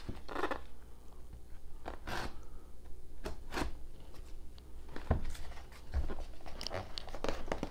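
A taped cardboard shipping box being handled: fingers pick at torn paper tape on a corner and turn the box over, giving irregular taps, scrapes and short crinkly rustles.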